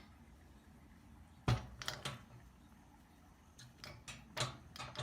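A few scattered sharp knocks and clicks, the loudest about a second and a half in, with near quiet between them.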